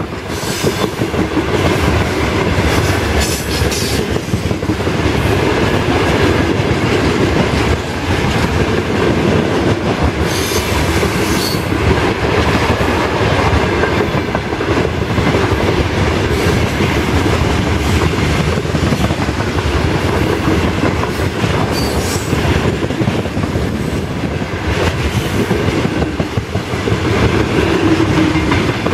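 Open-top gondola wagons of a long freight train rolling past close by: a continuous loud rumble with the rapid clickety-clack of wheels over rail joints. A short high wheel squeal sounds twice, about a third and two thirds of the way through.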